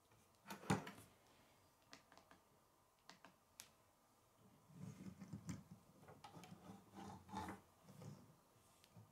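Plastic K'nex pieces clicking and clacking as they are handled and set down on a wooden table: a sharp knock under a second in, scattered small clicks, then a run of soft clattering from about five seconds in with another knock near seven and a half.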